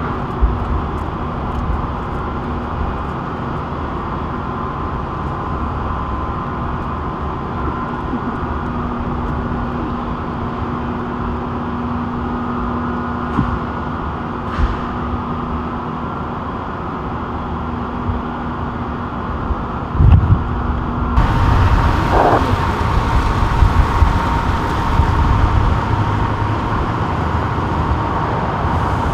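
Steady street noise of motor vehicles running, with engine hum holding a steady pitch; the sound changes abruptly about two-thirds of the way through to a different, similar vehicle noise.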